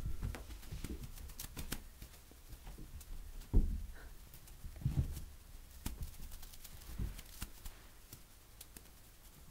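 A cat playing on a rug: soft thumps of it landing and pouncing, with light rustling and scattered clicks, the loudest thump about three and a half seconds in.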